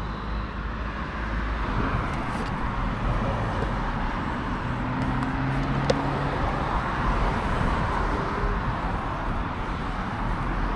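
Steady road traffic noise from passing cars, with a vehicle's engine hum rising and falling through the middle and one short click about six seconds in.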